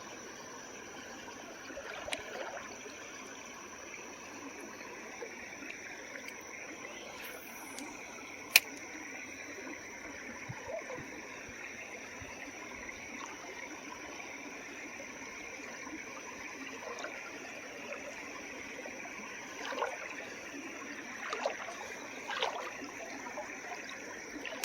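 Small creek water flowing and trickling steadily. A single sharp click stands out about a third of the way in, and a few lighter knocks come near the end.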